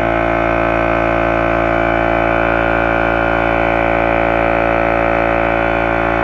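Kobalt 8-gallon air compressor's motor and pump running steadily and loudly, having started on a 100-foot 16-gauge extension cord.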